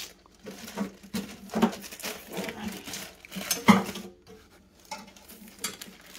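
Hands rummaging inside a painted steel battery case among loose metal parts and plastic packing: irregular metallic clinks, knocks and rattles, with the sharpest knock a little under four seconds in.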